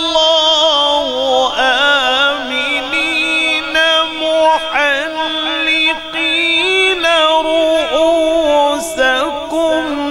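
A man reciting the Quran in the melodic tilawat style, holding long, drawn-out notes with wavering ornamental turns and rarely pausing.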